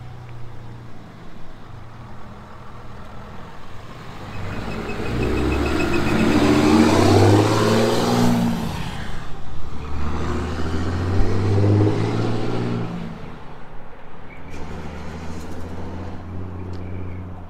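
Ram 3500 pickup with a new South Bend dual-disc clutch, its engine pulling away and accelerating past, rising to a peak. After a brief break about nine seconds in, as with a gear change, it rises again and then fades into the distance.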